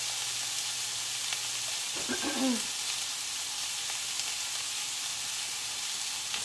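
Hamburger patties sizzling steadily in a smoking-hot cast iron skillet with a little vegetable oil.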